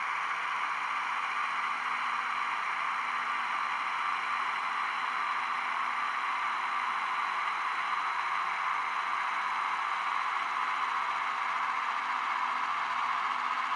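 A steady, even hiss with no rhythm or clicks, unchanged while the model locomotives pass.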